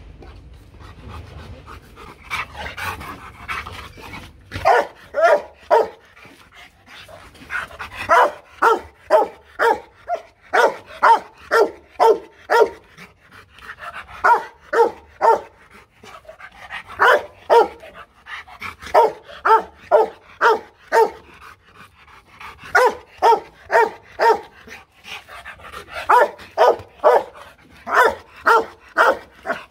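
Rottweiler giving a loud warning bark, only a first-level bluff threat and not an attack bark. After a few seconds of panting, the barks come in quick runs of about two to three a second, with short breaks between runs.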